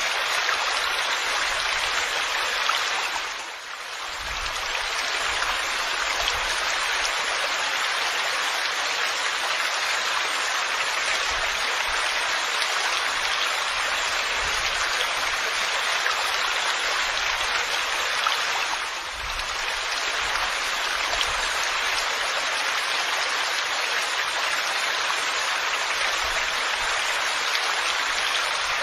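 Steady, dense rainfall, an even hiss of falling water that briefly softens twice.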